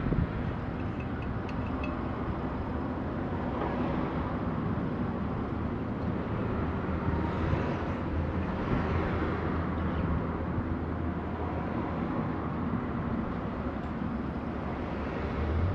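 Buell Blast's 492 cc air-cooled single-cylinder engine idling steadily while warming up, getting louder near the end.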